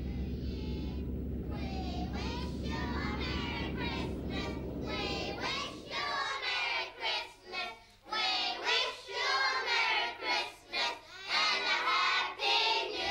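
A group of children singing together. For the first six seconds or so a steady low rumble runs under it, then stops and leaves the singing alone.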